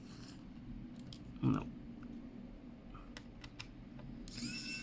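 Light clicks and taps of small laptop parts and screws being handled, then near the end an electric precision screwdriver's small motor starts a steady high whir.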